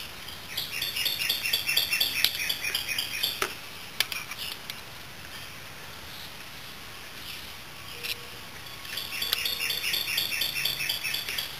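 A bird chirping in rapid repeated notes, about five a second, in two bouts of a few seconds each. A few sharp clicks fall between the bouts.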